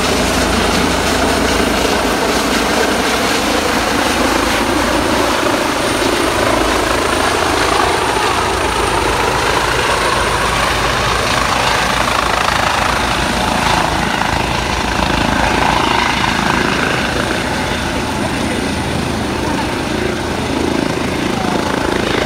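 Police helicopter's rotor and turbine engine, loud and steady as it flies low overhead and comes down to land, the pitch sliding slowly as it moves.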